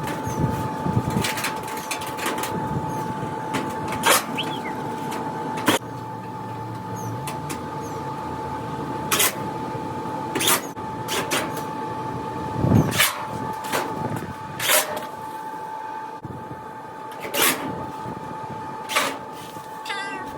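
Metal clanks and knocks at irregular intervals, about eight in all, as tools and dryer cabinet panels are handled during disassembly, over a steady high-pitched hum.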